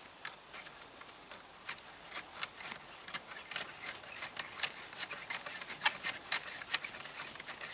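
FN FAL rifle's gas tube being unscrewed by hand from its threads: light metal-on-metal rubbing with many small irregular clicks, coming more often after about two seconds.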